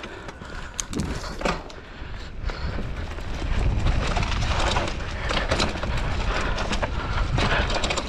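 Mountain bike rolling down a rough dirt single track: a low rumble of tyres over dirt and rocks, with many sharp clicks and knocks as the bike rattles over bumps, getting louder about three seconds in.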